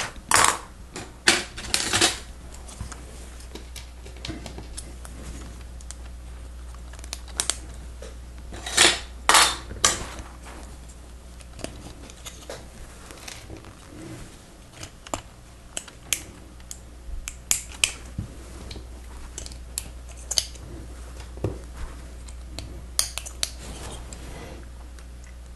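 Plastic Lego Technic pieces clicking and clattering as they are handled and pressed together: scattered sharp clicks, with louder rattling just after the start and again around nine seconds in, over a steady low hum.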